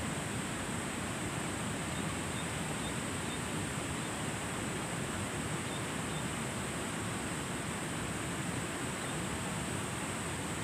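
Steady rushing noise of a flowing river, even and unbroken.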